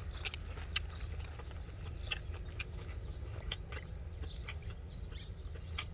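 Close-up chewing of a crisp home-grown lettuce and pork-belly wrap: irregular crunches over a low steady rumble.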